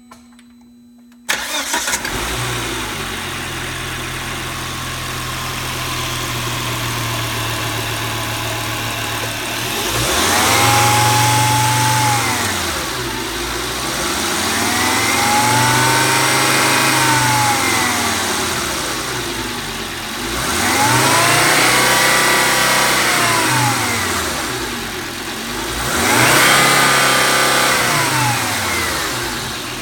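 2000 Volvo S70's 2.4-litre turbocharged inline five-cylinder engine starting: a brief quiet whir, then it catches about a second in and settles into a steady idle. From about ten seconds in it is revved up and let fall back four times, each rev a rising then falling pitch, showing the engine runs without problems.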